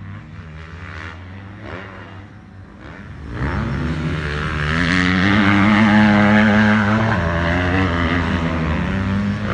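Motocross bike engines on the track, faint and distant at first. From about three seconds in, a bike comes much closer and louder, its engine rising and falling in pitch as the rider works the throttle, loudest around the middle.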